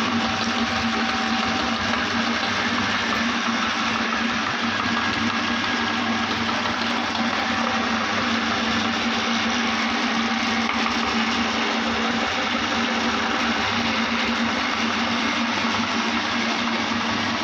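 Electric meat grinder running with a steady motor hum while grinding strawberries into pulp through its cutting plate.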